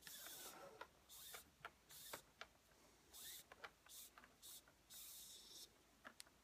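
Cord being drawn through a pineapple knot on a mandrel: a run of faint swishing rubs, about seven short pulls, with light clicks and taps between them.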